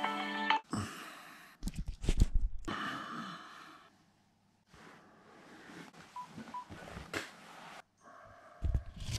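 A phone's electronic alarm melody cuts off about half a second in, followed by quiet rustling of bedding and a few knocks as someone stirs in bed. Two short beeps come from the phone partway through, and there is a low thump near the end.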